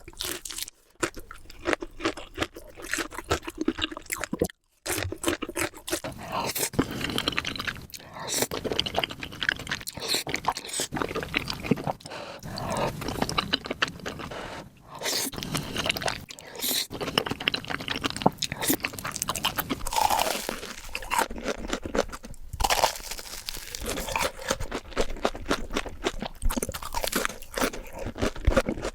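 Close-miked eating: a person biting and chewing crunchy food, with a dense, irregular run of crunches and mouth sounds.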